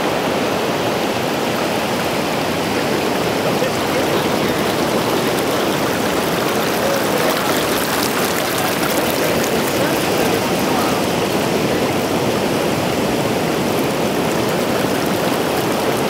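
Shallow water flowing over sand where it enters the ocean, a steady rushing wash that does not let up.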